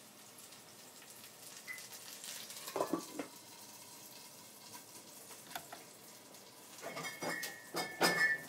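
Shungiku chijimi frying in a pan, sizzling faintly. A couple of knocks on the pan about three seconds in, and metal clatter near the end.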